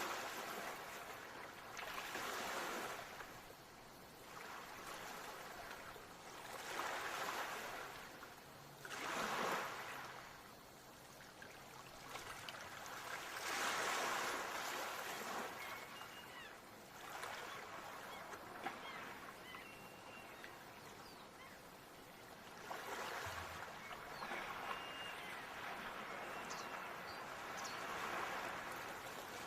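Ocean surf washing onto the shore in slow swells, each wave rising and falling away every few seconds over a steady hiss of water. Faint short high chirps come in during the second half.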